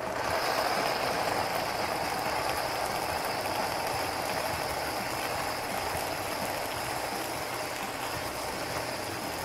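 Powerful countertop blender switching on and running steadily, puréeing cooked fresh corn kernels with cream into a thick purée.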